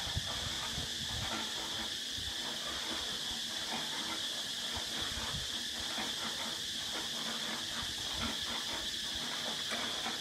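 A steady high-pitched hiss throughout, with faint irregular clicks and taps of clay roof tiles being handled.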